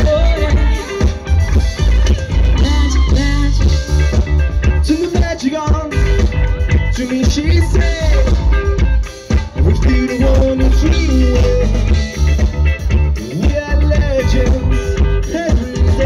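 Live rock band playing loud through a stage PA: electric guitars and a drum kit with heavy bass, and a vocalist singing at the mic.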